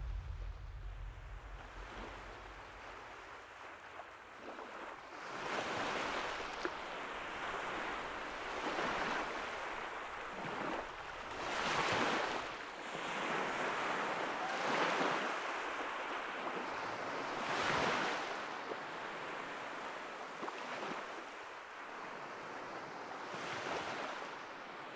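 Sea surf washing against a rocky shore: a steady hiss that swells and falls back in separate surges, one about every three seconds.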